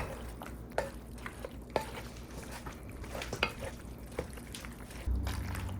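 A spoon stirring penne through a thick creamy sauce in a pot, with scattered light scrapes and clinks of the utensil against the pot. A low steady hum starts near the end.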